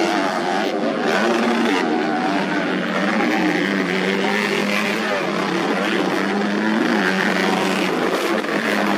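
Several modified underbone motorcycles racing together, their engines revving hard. Their overlapping pitches rise and fall as the riders open and close the throttle and shift.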